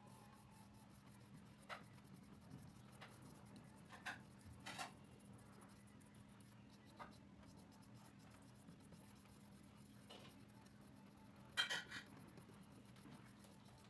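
Faint, scratchy strokes of a paintbrush laying acrylic paint on paper: a few scattered strokes, the loudest pair a couple of seconds before the end, over a faint steady low hum.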